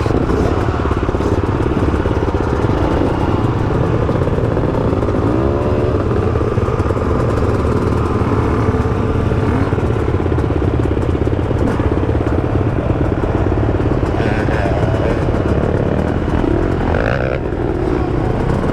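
Yamaha YZ250X two-stroke dirt bike engine running on a trail ride, the revs rising and falling, heard from a mic inside the rider's helmet.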